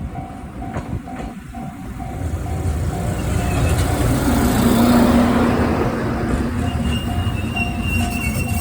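Japanese level-crossing alarm ringing steadily, about two rings a second, while a train rolls through the crossing. The train's rumble builds to its loudest about five seconds in, and a faint wheel squeal comes in near the end.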